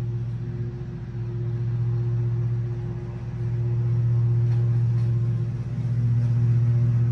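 Lawn mower engine running at a steady speed, a low, even drone that swells and fades as the mower moves closer and farther off.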